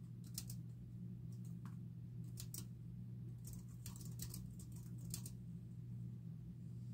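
Typing on a computer keyboard in short bursts: small clusters of key clicks with pauses between them, thinning out after about five seconds. A steady low hum runs underneath.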